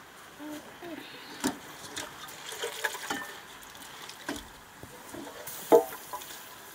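Wet greens rustling and dripping water as they are handled in a metal pot of water, with scattered light clicks and scrapes from a wooden stick stirring greens in a wok. A single short, loud sound comes near the end.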